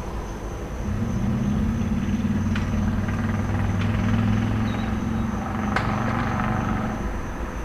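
A vehicle's engine runs close by as a low, steady, slightly pulsing drone that comes up about a second in and fades near the end. Crickets chirp steadily in the background, and a few faint sharp snaps sound in the middle, the loudest just before the engine fades.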